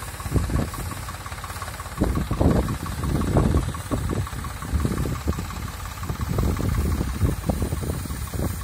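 An engine running steadily, with uneven louder surges over it.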